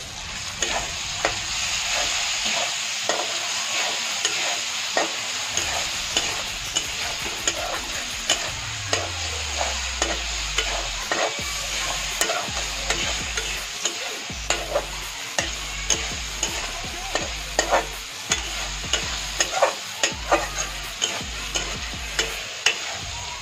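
Onion-tomato masala frying in oil in a metal kadhai with a steady sizzle. A steel spatula stirs and scrapes against the pan, making repeated sharp taps about once or twice a second. This is the bhuna stage, where the masala is fried until the oil separates.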